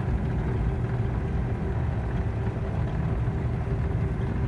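Combine harvester running steadily while cutting wheat, heard from inside the cab: a constant low engine and machinery drone.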